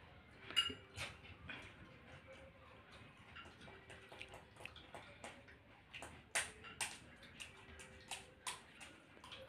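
Scattered sharp clicks and crackles of crisp pani puri shells being poked open by fingers, with a spoon tapping and scraping small ceramic bowls while the puris are filled. A few clicks ring briefly.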